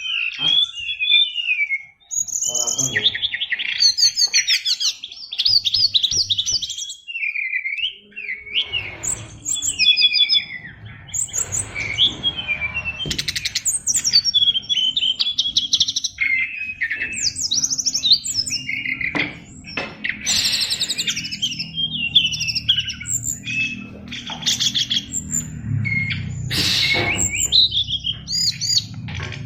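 Brown-chested jungle flycatcher (SRDC) singing a long, varied song of quick chirps, trills and short whistled phrases, crammed with imitations of other birds' calls. A low steady hum sits beneath it from about a third of the way in.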